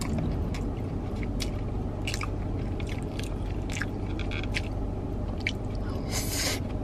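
Close-up chewing and biting of a poke bowl (salmon, cucumber, rice) eaten with chopsticks: scattered wet mouth clicks and squishes.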